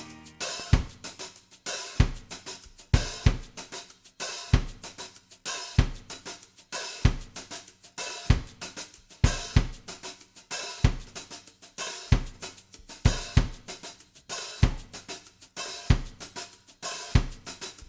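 Music reduced to a drum-kit break: kick drum, snare and hi-hat or cymbals playing a steady beat.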